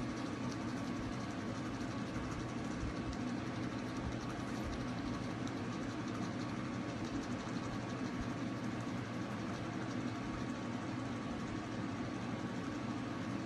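Battery-powered toothbrush buzzing steadily as it brushes a small dog's teeth, an even hum with no breaks.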